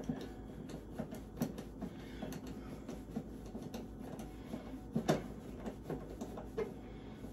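Scattered light clicks and taps of screws and hardware being handled while an electrical breaker panel's front cover is fastened, with one louder knock about five seconds in, over a faint steady hum.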